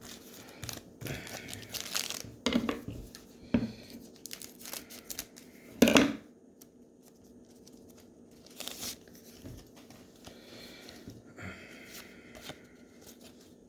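Trading card pack wrappers crinkling and tearing as packs are opened and the cards handled: a string of sharp crackles and rustles, the loudest about six seconds in.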